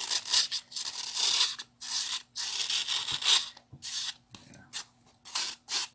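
Snap-off craft knife blade scraping and shaving dry floral foam in a series of rasping strokes, some long and some quick, as the rounded top of the foam is levelled flat.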